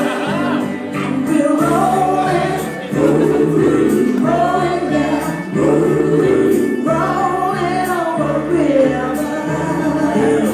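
Music with a choir singing, in phrases over a steady bass line.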